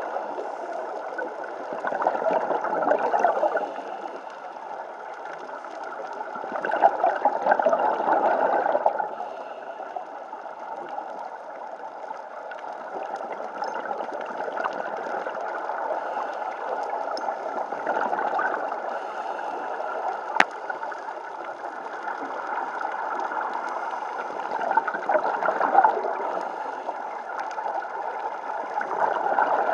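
Underwater sound of scuba divers breathing through their regulators: exhaled bubbles gurgling in surges every several seconds over a steady watery rush. One sharp click comes about two-thirds of the way through.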